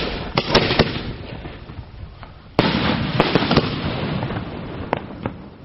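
Aerial fireworks bursting: a few sharp bangs in the first second, then a sudden loud cluster of bursts about two and a half seconds in, whose dense noise slowly dies away, with a couple of single bangs near the end.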